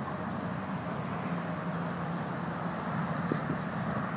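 Steady low hum of distant traffic on the interstate highway bridge, heard across the floodwater.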